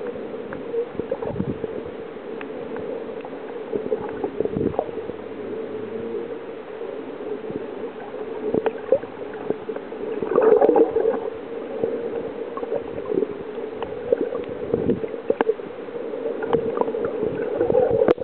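Muffled underwater noise picked up by a camera held under the sea: water gurgling and sloshing over a steady hum, with scattered sharp clicks. The water grows louder briefly about ten seconds in.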